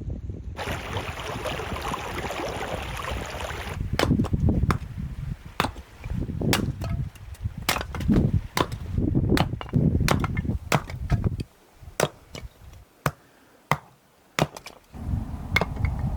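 A few seconds of rustling noise, then a run of sharp knocks and dull thuds, roughly one or two a second, thinning to a few isolated clicks later on.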